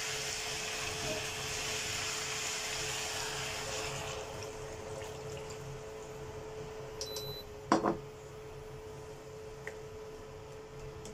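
Hot water poured into a hot frying pan of chicken wing tips, sizzling loudly for about four seconds and then settling to a quieter simmer. A single sharp knock about eight seconds in.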